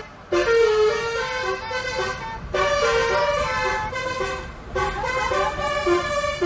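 Bus telolet horn playing a tune: a multi-note musical air horn sounding held notes that step up and down in pitch, with short breaks between phrases.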